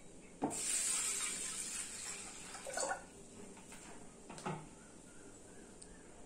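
Water poured from a plastic bowl into an aluminium pressure cooker onto washed toor dal, splashing for about two and a half seconds and easing off as the stream thins. A short knock follows about four and a half seconds in.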